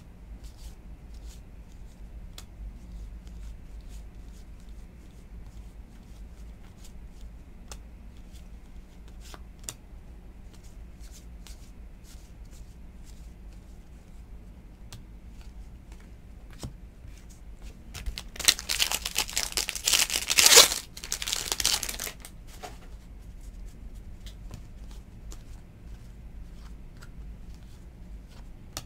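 Soft clicks of baseball cards being flipped through by hand, then about eighteen seconds in a few seconds of loud tearing and crinkling as a card pack wrapper is ripped open.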